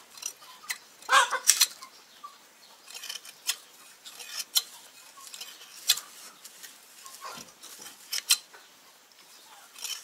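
Hand sheep shears snipping through a sheep's fleece: irregular sharp metallic clicks of the blades closing, a second or two apart, some in quick pairs.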